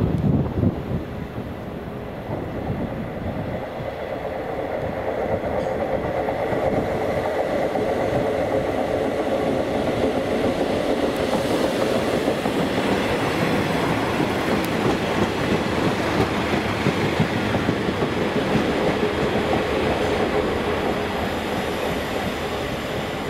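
A passenger train running on the rails, a steady rumble with a humming tone that builds over the first several seconds and then holds.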